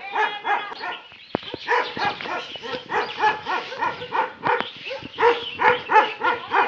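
Dog barking over and over in a steady run of short barks, about three a second, without a break.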